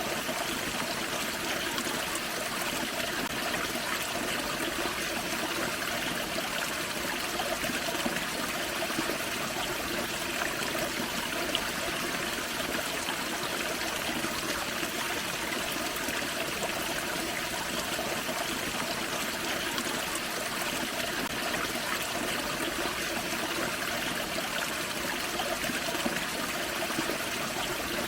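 Forest creek running over a small waterfall: a steady rush and trickle of water that holds even throughout.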